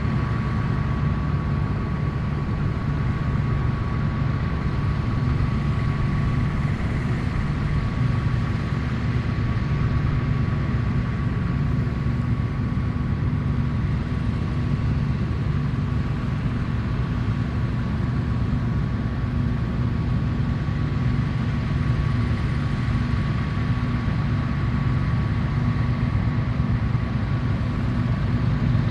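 Dronningborg D2600 combine harvester running steadily under load while harvesting: a constant low engine and machinery drone with a thin, steady high whine over it.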